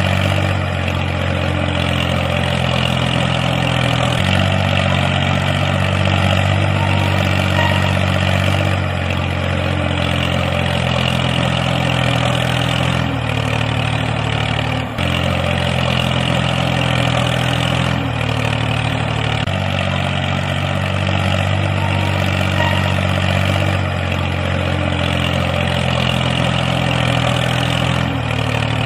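Tractor engine idling with a steady low drone, its level shifting slightly every few seconds.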